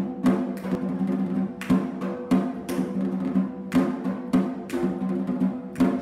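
Drum music: ringing, pitched drum strokes in a quick, steady rhythm of about three a second.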